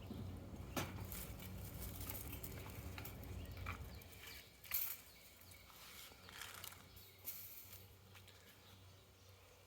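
Faint rustling with a few soft, brief ticks and scrapes, over a low hum that fades out about four seconds in.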